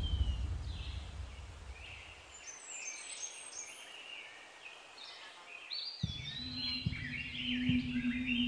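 Birds chirping and twittering in many short, quick calls. A low rumble fades away over the first couple of seconds, and a steady low hum starts suddenly about six seconds in.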